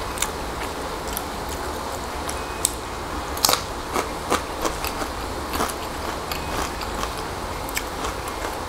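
Close-up eating sounds: chewing and crunching of fried dried fish and fried shirataki rice, with irregular sharp crunchy clicks, busiest about halfway through, over a steady low hum.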